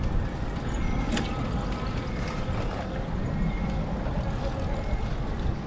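Bicycle ride noise: steady low rumble of wind on the microphone and tyres rolling on the path, with a short high squeak repeating about once a second and a sharp click about a second in.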